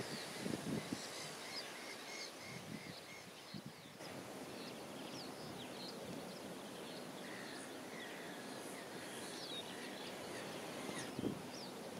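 Outdoor background hiss with many small birds chirping and twittering throughout, including a quick run of evenly repeated notes in the first few seconds. A few soft low thumps come near the start and about a second before the end.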